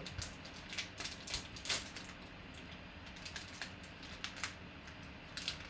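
Plastic wrapper of a trading card pack crinkling and crackling as it is torn open by hand, in irregular short crackles and clicks.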